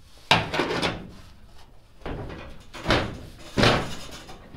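Steel trunk lid of a Pontiac GTO being worked on its hinges and brought down shut: a series of heavy metal thunks, four in all, the loudest near the end.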